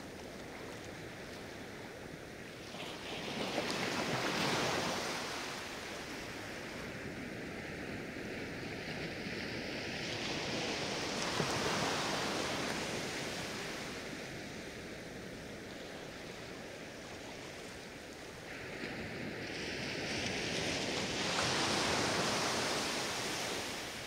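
Small ocean waves breaking on a sandy beach, the surf swelling up and washing back three times, roughly every eight seconds, over a steady hiss of water.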